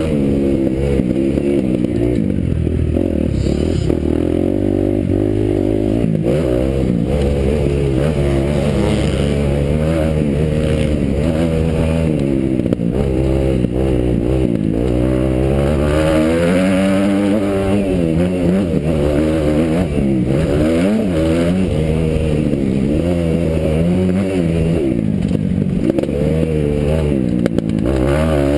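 Kawasaki motocross bike's engine revving up and falling back over and over as the rider works the throttle, with clatter from the bike over rough ground.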